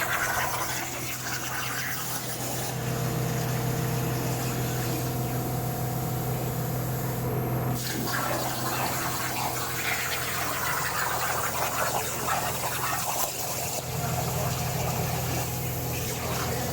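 CNC plasma cutter running: a steady hiss of the cutting arc and air with a low electrical hum underneath, the hiss shifting in character a few times.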